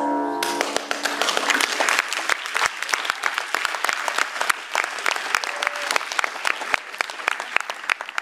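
Audience applauding in a cinema auditorium; the film's closing music cuts off about half a second in and the clapping takes over, thinning out near the end.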